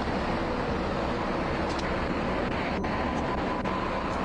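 Steady, unbroken vehicle engine roar with faint steady tones over it, holding level throughout.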